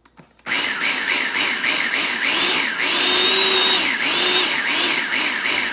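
Food processor motor running for about five seconds, mixing coconut flour into a thick puree to make cookie dough; its whine rises and falls over and over as the blade works the thick mixture.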